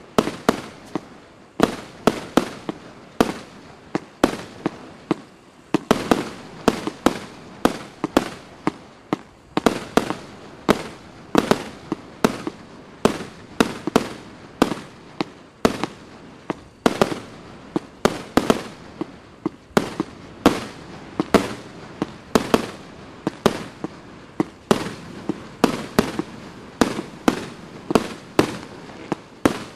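A 150-shot consumer fireworks cake with 30 mm tubes firing continuously: sharp reports about two a second as its shots launch and burst.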